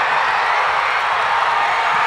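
Football crowd in the stands cheering and yelling, a dense steady roar of many voices.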